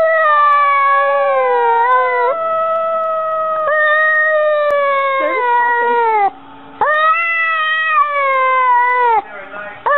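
Domestic cat yowling loudly in long, drawn-out meows. One continuous call lasts about six seconds and wavers slightly in pitch, then after a short break comes a second call of about two and a half seconds, and a third begins near the end.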